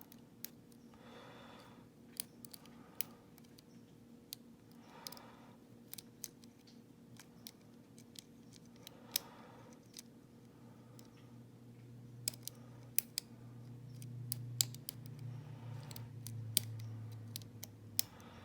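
Lock pick and tension tool working inside a padlock's cylinder core: small sharp metallic clicks and scrapes come at irregular intervals as the pins and side elements are raked and set. A low hum joins in about ten seconds in.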